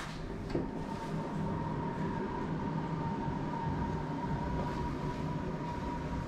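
A door latch clicks as the lever handle is pressed and the door swings open. Over it runs a steady droning hum with a constant thin whine.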